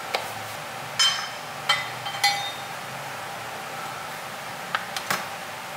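A few sharp, ringing clinks from a ceramic bowl and kitchen knife being handled, then a quick cluster of knocks as the chef's knife chops through raw chicken wings onto the cutting board.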